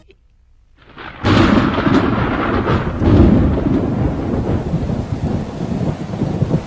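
Thunderstorm: a loud thunderclap breaks in about a second in, after a moment of silence, and rolls on over heavy rain, swelling again about three seconds in.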